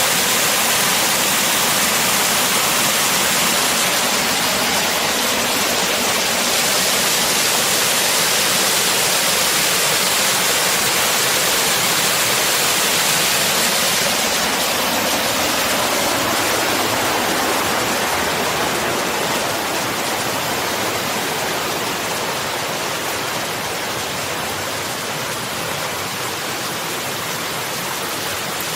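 Rushing water of a waterfall and its mountain stream, a steady loud hiss that eases a little in the second half.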